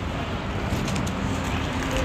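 Steady outdoor background noise with a low rumble and a few faint clicks about a second in.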